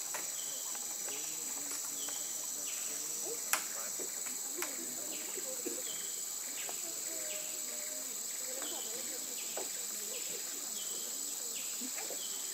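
Steady high-pitched drone of rainforest insects, with a short high note repeating about every second. One sharp click sounds about three and a half seconds in.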